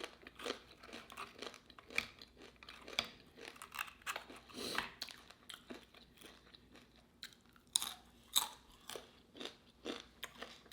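Close-miked chewing and crunching of food: irregular moist crackles and small clicks, with a couple of sharper crunches about eight seconds in.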